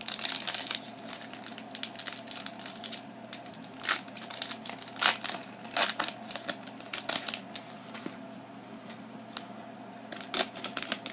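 Foil wrapper of a Pokémon booster pack crinkling and crackling irregularly as it is torn open by hand and the cards are worked out. The crackling is busiest in the first several seconds, then comes more sparsely, with a burst about ten seconds in.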